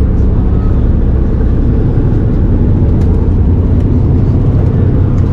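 Boats' engines idling at the pier: a loud, steady low rumble.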